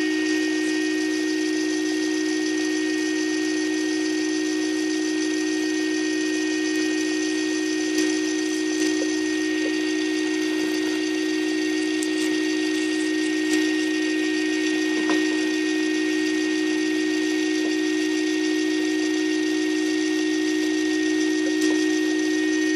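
Hammond E112 organ holding a steady sustained chord while its vibrato scanner is worked on, with a few light clicks of the screwdriver against the scanner rotor.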